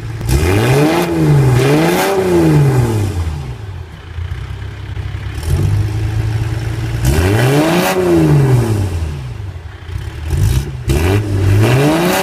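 Toyota 1HZ 4.2-litre inline-six diesel idling and being revved several times: two quick blips at the start, one in the middle and one near the end, each rising and falling back to idle.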